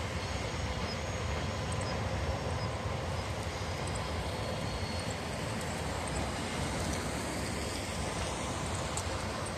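Container freight train climbing away on the Seno–Hachihonmatsu grade, pushed by an EF210 banker locomotive at its rear. Its wheels and motors make a steady rumble that slowly fades near the end.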